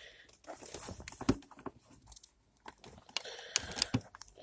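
Volvo V70 handbrake lever pulled up and let down quickly several times, its ratchet giving a run of irregular clicks and rattles.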